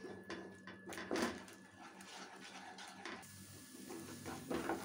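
Wooden spatula scraping and knocking against a non-stick frying pan while a thick masala paste is stirred and fried. The scrapes come in a quick run in the first second or so, ease off, and pick up again near the end.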